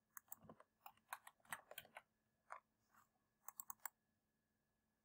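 Near silence broken by faint, short clicks scattered irregularly, with a quick run of four about three and a half seconds in.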